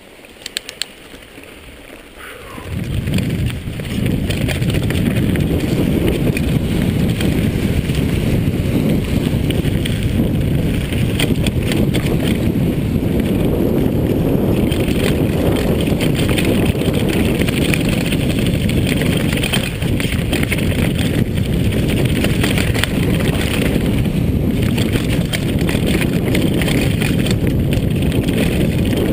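Wind rushing over the camera's microphone and the tyres and frame of a Jamis Dakar XAM mountain bike rattling over a dirt singletrack at speed. It starts quietly, and about three seconds in the loud, steady rush builds as the bike picks up speed downhill.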